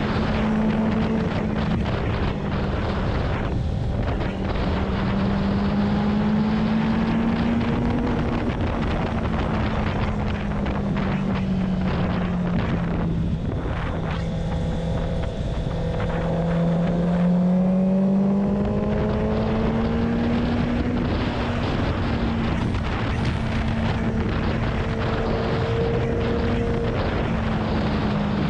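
Motorcycle engine running at a steady cruise under heavy wind noise on the microphone. Its note sags a little about midway, then climbs again as the bike picks up speed.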